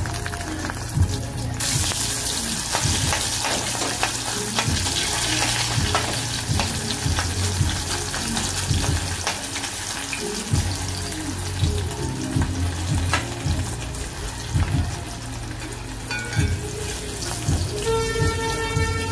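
An egg frying in hot oil in a black iron pan, a steady sizzle that grows louder and brighter about a second and a half in as oil is spooned over it. Light clicks of a metal utensil against the pan come and go.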